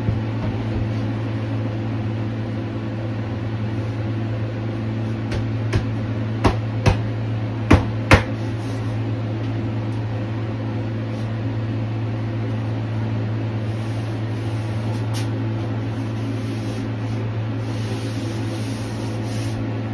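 A steady low mechanical hum throughout, with a cluster of five sharp wooden knocks about six to eight seconds in as a plywood vanity top is set and seated onto a base cabinet.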